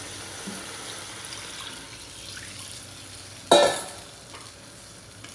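Water poured from a stainless steel bowl into a pot of sautéed chicken, splashing and hissing over the hot oil. About three and a half seconds in, a single sharp metallic clank rings briefly.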